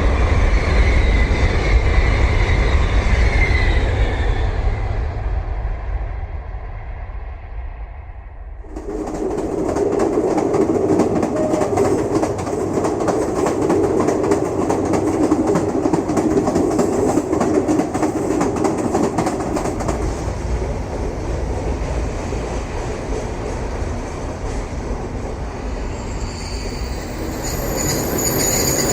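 Train running on rails. A heavy rumble with a high wheel squeal fades away over the first eight seconds. About nine seconds in, a louder run cuts in with a rapid clatter of wheels on the track, and high wheel squeal returns near the end.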